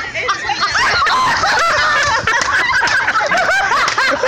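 Several people laughing hard together, with rapid, high-pitched cackling.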